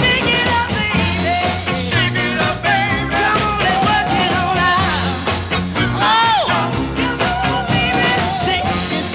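Oldies rock and roll record playing: a wavering lead melody over a steady bass and drum beat, with one pitch bend that rises and falls about six seconds in.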